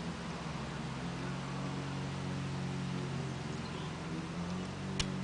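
A steady low mechanical hum over an even hiss, with one sharp click about five seconds in.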